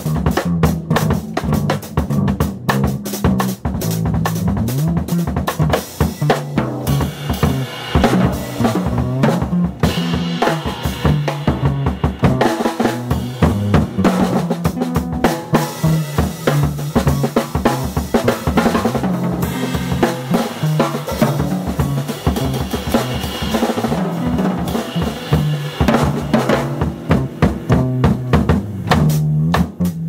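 Jazz drum kit played busily with many hits on snare, bass drum and cymbals, over a bass line of moving low notes.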